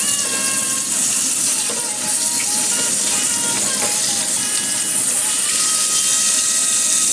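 Background music with a simple held-note melody, over a steady bright hiss that fits oil sizzling as chicken fries.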